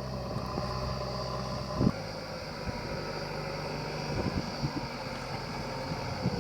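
Backhoe loader's diesel engine running, with a thump about two seconds in where the engine note changes, and a few knocks later.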